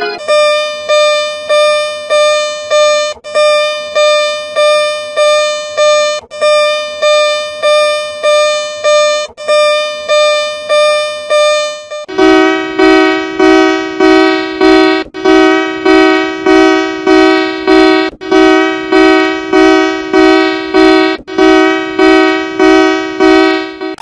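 An electronic emergency-alert alarm tone, distorted by audio effects, beeping about twice a second with each beep fading away. About halfway through it drops to a lower, buzzier pitch and gets louder.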